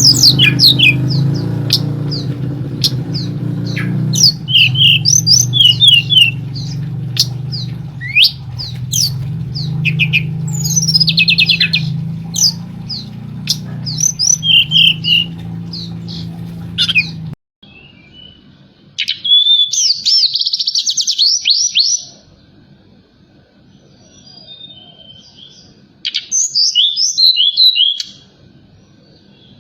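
Tledekan gunung (a small Indonesian songbird) calling over and over with sharp chirps and quick trills, used as a lure call to stir caged birds into singing. A steady low hum under the calls stops suddenly about two-thirds of the way in; after that the calls come in two short bursts.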